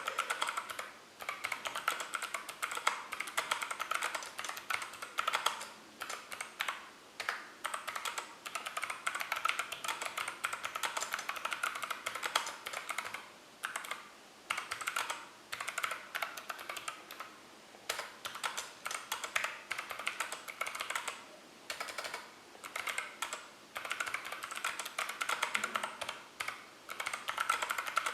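Mechanical keyboard with clicky Kailh Box Pink click-bar switches and dye-sub PBT Cherry-profile keycaps being typed on: fast runs of sharp keystroke clicks, broken by brief pauses every few seconds.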